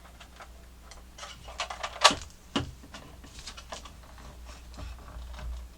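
Hard plastic parts of a toy snow cone maker clicking and knocking as they are handled and fitted together, with the loudest knock about two seconds in.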